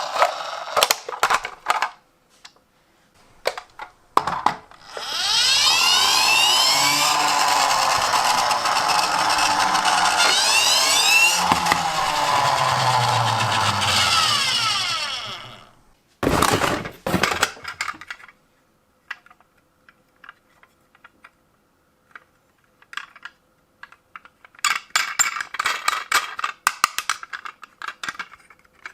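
Toy vehicle's siren sounding loudly for about ten seconds, whirring with many pitches sweeping up and down, then stopping. Plastic clicks and rattles from the toy being handled come before and after it.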